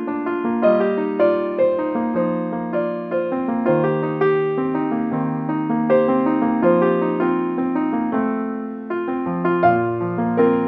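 Background piano music: a slow, gentle melody of sustained notes over a lower line.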